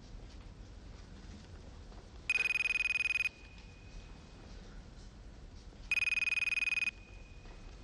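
Telephone ringing twice, each ring a rapid trill about a second long, with a pause of about two and a half seconds between rings.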